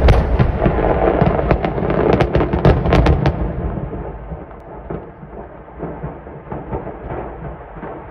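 A large mass of fireworks exploding all at once: a heavy rumble full of rapid crackling and sharp bangs for about three seconds. It then dies down into a lower rolling rumble with scattered pops.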